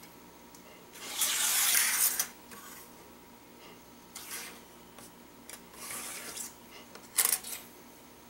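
Plastic toy train track pieces slid across a tabletop and set down: a long scraping slide about a second in, softer rubs after it, and a couple of light plastic clicks near the end.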